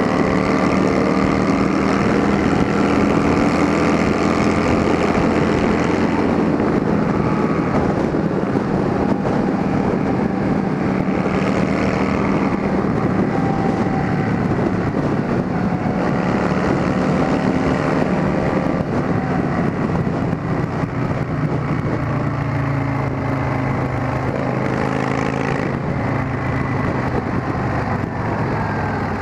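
Yamaha Drag Star and Fazer 600 motorcycles with straight-through exhausts running under way. The engine note rises and falls several times as the throttle is worked.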